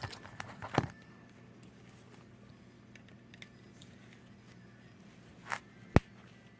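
Small clicks and scrapes of snips working at the axle of a die-cast toy car's wheel, then one sharp snap near the end as the wheel comes loose.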